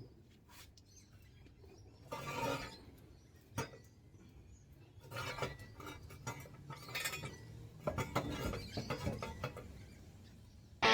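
Metal jack stands being set in place under a car: faint scattered clinks and clanks of metal on metal, a short clatter about two seconds in, a single knock, then a busier run of rattles and clanks until near the end.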